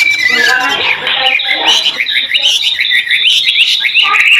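White-rumped shama (murai batu) singing loudly: a fast, varied run of short chirps and whistled glides, going into a dense, continuous trill near the end.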